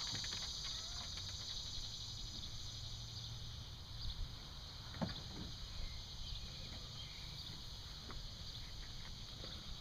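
A few light knocks and clicks from a kayak being handled and set on a truck's rack, over a steady high-pitched hiss.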